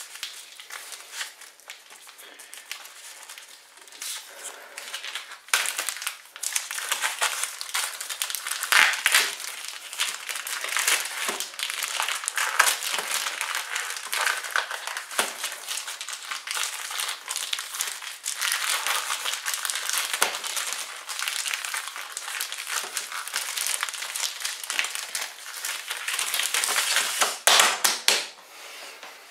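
Clear plastic film wrapper on a block of cheese crinkling continuously as hands grip and pull at it to tear it open, loudest near the end.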